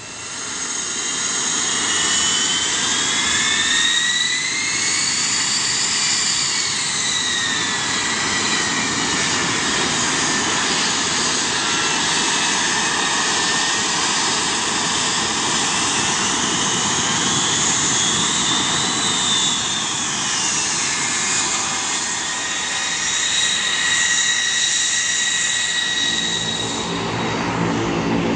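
L-39 Albatros jet trainer's turbofan running loud and steady as the jet rolls along the runway, its whine gliding up and down in pitch. Near the end a turboprop's propeller hum comes in.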